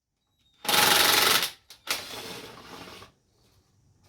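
A loud burst of rasping mechanical noise lasting about a second, then a sharp click and a quieter rasp for about another second, from taking the seat off a Yamaha TT-R110E dirt bike.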